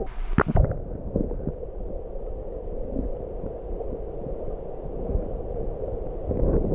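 Muffled rushing and knocking of stream water heard through an underwater camera housing, mostly a low rumble with small bumps throughout. A short, brighter noisy burst comes just after the start.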